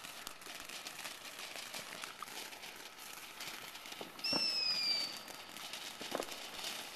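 Ground fountain firework spraying sparks with a steady crackling hiss. About four seconds in, a whistle sounds, falling slightly in pitch, together with a couple of short pops.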